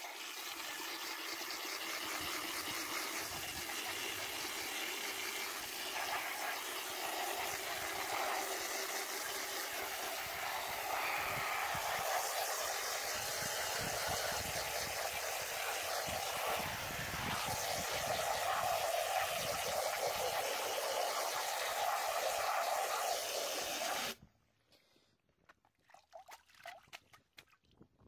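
Garden hose spray nozzle spraying cold water onto greasy wool locks in a plastic colander: a steady hiss of water, rinsing the grease out of the fleece. It cuts off suddenly a few seconds before the end.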